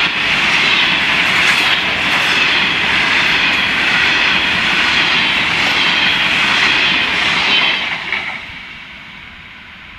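Grain hopper wagons of a freight train rolling past, with loud steel-wheel-on-rail noise. The last wagon clears about eight seconds in and the noise falls away quickly.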